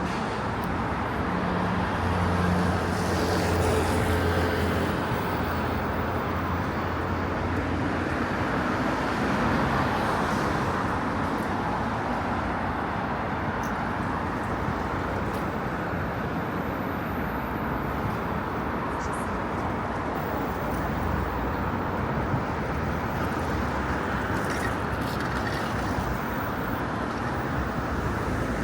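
City street traffic: steady road noise of passing cars. An engine hum is loudest a few seconds in.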